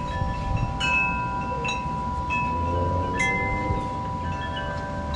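Chimes ringing: several clear metallic tones struck at irregular moments, each ringing on and overlapping the others, over a steady low rumble.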